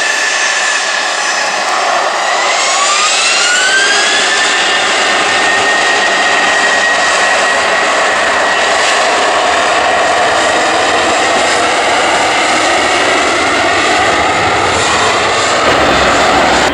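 Jet airliner's engines running loud, with their whine rising steeply about two seconds in and then holding at a high steady pitch, as on spooling up to takeoff thrust.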